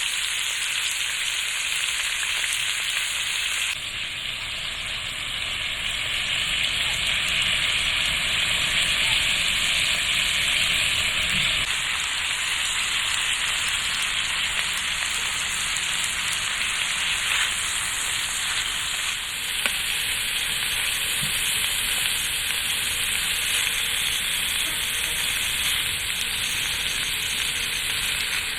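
Food frying in a pan, a steady sizzle that shifts a little in level about four seconds in and again near twenty seconds.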